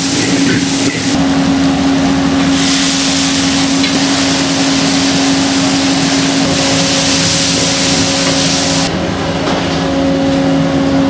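Commercial wok station in use: a steady roar with a constant hum from the high-powered burner and kitchen extraction, under the hiss and sizzle of food and sauce frying and bubbling in a hot wok. The high sizzle drops away briefly after the first second and again near the end.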